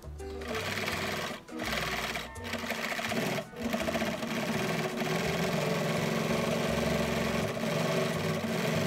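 Electric household sewing machine stitching a zigzag seam through a cotton towel. It stops briefly twice in the first few seconds, then runs steadily. Background music plays underneath.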